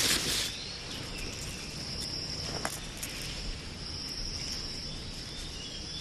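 Insects calling in a steady, high, even buzz, with a short rustle at the start and one faint click about two and a half seconds in.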